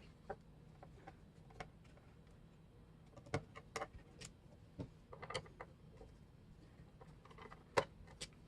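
Scattered small clicks and taps of a screwdriver working the screws out of a laptop's bottom cover, with the sharpest tap near the end.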